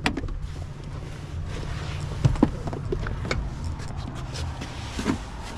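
Vehicle engine running with a steady low hum, with a few scattered clicks and knocks over it.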